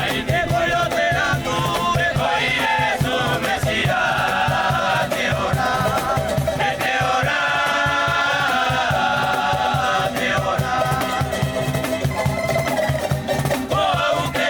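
Gospel music with a choir singing over a steady, fast rhythmic beat.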